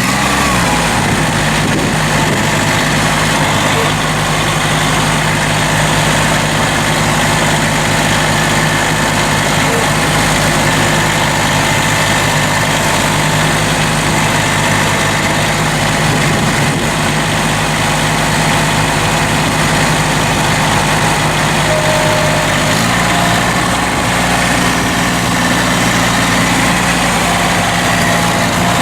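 Massey Ferguson GC1710's three-cylinder diesel engine idling steadily. About two-thirds of the way through, its engine speed steps up slightly.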